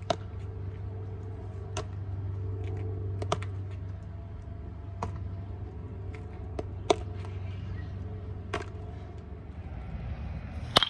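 Sharp taps of a baseball during ground-ball fielding practice on asphalt, the ball hitting the pavement and the leather glove, repeating about every second and a half to two seconds over a steady low hum. Near the end comes one louder crack.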